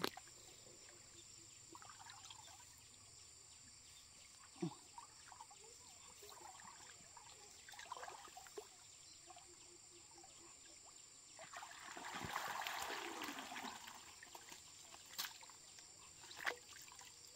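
Faint water trickling and splashing, swelling into a louder pour of water for a couple of seconds past the middle, with a few sharp knocks.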